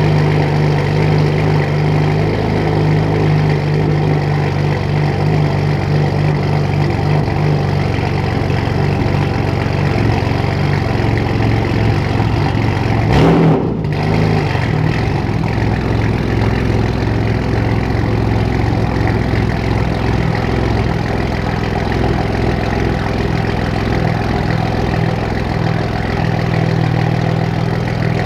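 BMW M4's twin-turbo inline-six idling steadily through catless downpipes and a non-resonated AWE Track Edition exhaust, with a deep, even exhaust note. A brief louder burst comes about halfway through.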